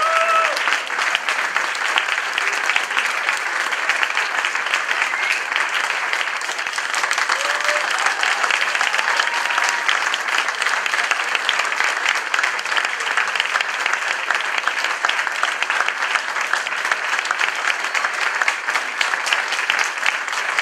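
Audience applauding continuously and steadily, a dense patter of many hands clapping.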